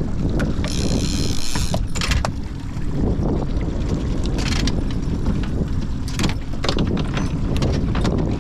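Boat motor running steadily at trolling speed, with a low rumble of motor and water, a brief hiss about a second in and a few scattered knocks.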